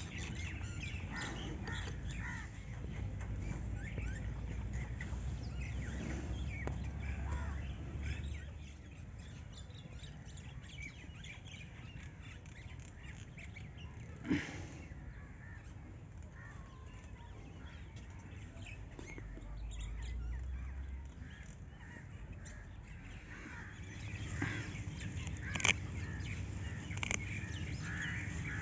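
Birds calling in short, scattered calls, with a single sharp knock about halfway through.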